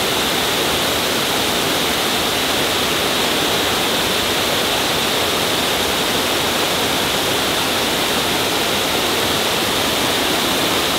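Garden waterfall: water falling over a stone wall in a steady, loud rushing hiss.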